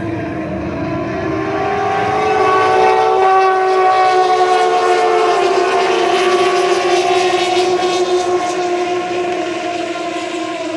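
Engines of several Turismo Carretera race cars running hard, heard as a loud blend of pitches at different engine notes that swells for a few seconds as the cars pass and then slowly fades.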